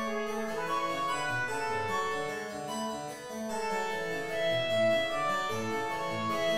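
Harpsichord playing a slow instrumental piece, with repeated low bass notes under the melody.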